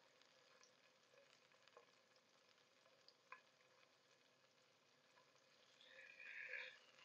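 Salmon fillets frying gently over low heat in a nonstick pan: a faint sizzle with scattered small crackles and a single click about three seconds in. Near the end comes a brief louder sizzle as a fillet is turned with tongs.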